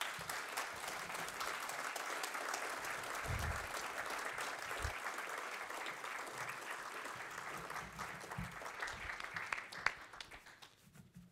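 Audience applauding. The clapping holds steady, then thins out and dies away near the end.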